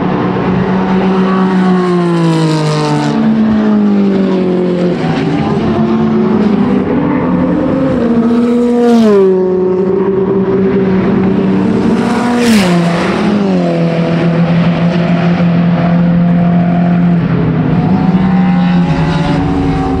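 Racing car engines running hard and passing close by, with several gear changes heard as sudden steps in pitch. Two cars go past about nine and twelve and a half seconds in, the pitch falling steeply as each passes.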